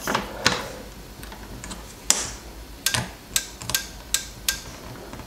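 Multimeter test probes being handled and touched to a circuit board, giving about nine sharp, unevenly spaced clicks and taps, several close together in the second half.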